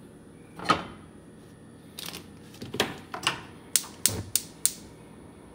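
Gas range's spark igniter ticking four times in quick succession, about three clicks a second, as the burner knob is held at LITE to light the burner. Before it come a loud thump about a second in and a few softer knocks of handling at the stove.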